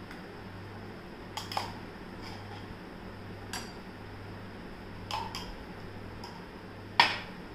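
A metal spoon clinking against glass tumblers as mango puree is scooped from one and tapped into the other: a handful of light, separate clinks, the loudest near the end.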